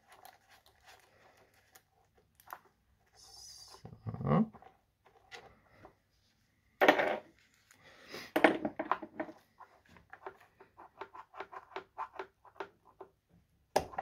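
Tools and small metal parts clicking, scraping and knocking as the intake manifold is worked off a scooter engine to get at the reed valve. There are a few louder clunks about four, seven and eight and a half seconds in, then a run of quick, light clicks.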